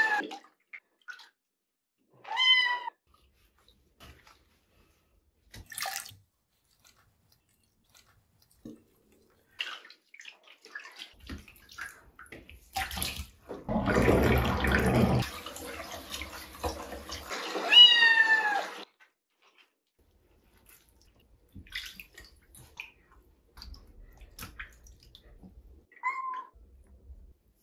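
A young tabby kitten mewing loudly while being bathed in a sink, about five separate meows that each drop in pitch, the longest near the end. The mewing is the kitten protesting its first bath. About halfway through, water splashes in the sink for a few seconds.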